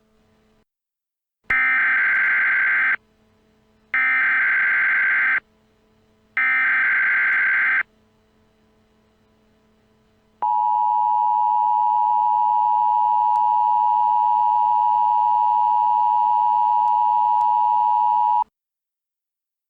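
Emergency Alert System tones: three short bursts of digital SAME header data, each about a second and a half, then the two-tone attention signal, a steady dual tone held for about eight seconds that cuts off sharply.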